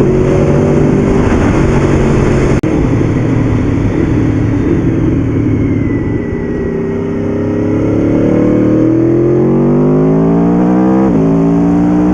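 2011 Aprilia Tuono V4 APRC's V4 engine on its stock exhaust, heard from the rider's seat over wind noise. The revs sink and the engine quietens a little in the middle, then climb steadily under acceleration, drop sharply at an upshift near the end and climb again.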